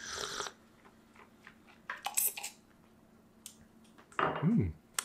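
A person slurping espresso from a cup: one slurp at the start and a second, shorter one about two seconds in, then a brief hummed 'mm' near the end.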